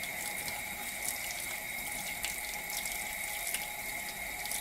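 Kitchen tap running steadily into a sink, an even rush of water with a faint steady high tone in it and a few small ticks.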